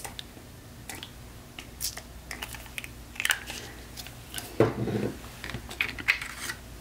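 Light, scattered clicks and taps of a spray bottle and a card being handled on a cutting mat, with a short low thud about four and a half seconds in.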